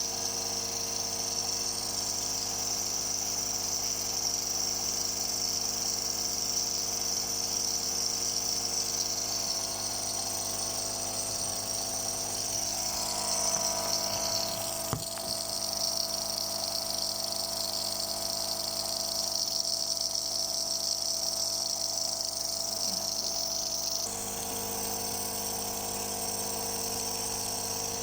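Compressor nebulizer running: a steady electric motor hum with a hiss of air and medicated mist. Its tone shifts slightly about halfway through, where there is a single sharp click.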